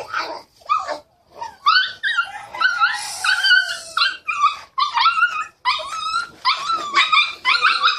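A dog whining and yipping in a long run of short, high-pitched cries, about two or three a second.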